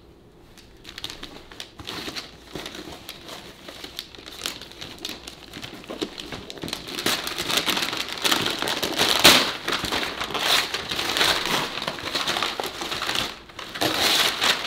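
Gift wrapping paper crinkling and being crumpled as a present is unwrapped, louder from about halfway through.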